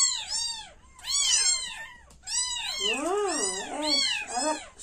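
Week-old kittens mewing over and over in short, high, arching cries, two or three a second. From about three seconds in, several cry at once, some at a lower pitch.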